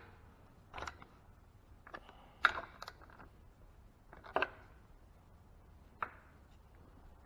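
A handful of short, light clicks and knocks, about six spread unevenly, from metal engine parts and hand tools being handled.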